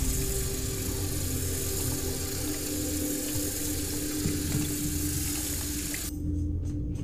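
Tap water running into a bathroom sink, cutting off abruptly about six seconds in. A steady droning music score runs underneath.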